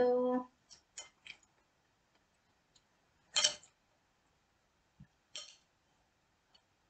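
A few light clicks and two short scrapes of a spoon against a serving bowl, about three and five seconds in, as avocado and tomato are spooned onto a taco.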